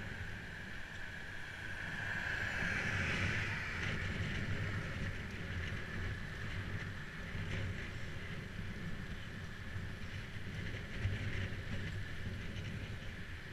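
Wind rushing over a bicycle-mounted GoPro Hero 3's microphone, with the rumble and hiss of bike tyres rolling on tarmac. The noise is steady and swells a little a few seconds in.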